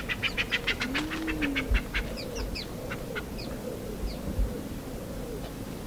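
Brown booby calls: a rapid run of short, clipped notes, about six a second, for the first two seconds, then scattered short high downslurred chirps. Soft low rising-and-falling notes sound underneath.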